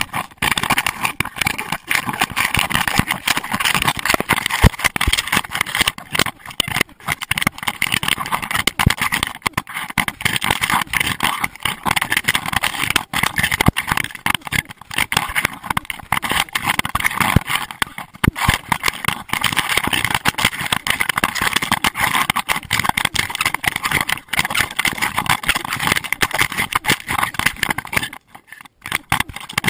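Constant rubbing and knocking from a GoPro Hero2 in its waterproof housing, jostled on the body of a running Doberman; it drops out briefly near the end.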